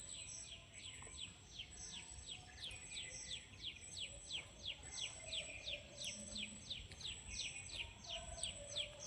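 A bird calling in a fast, steady series of short, high chirps that slide downward in pitch, about three a second.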